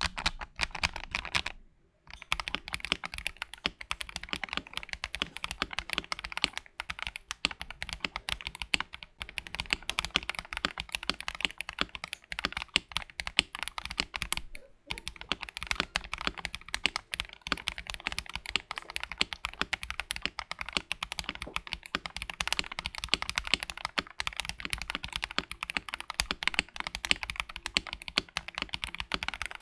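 Keychron V1 mechanical keyboard, tray-mounted with a steel plate, being typed on fast and continuously as a sound test: a dense run of key clacks with short pauses about two seconds in and again near the middle.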